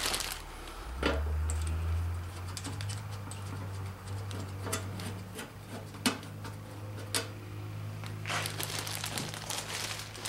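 Scattered light clicks and taps of a small steel hold-down bracket and nut being fitted by hand onto an oil pan stud of a Chevy small-block, with a brief scraping rustle near the end, over a steady low hum.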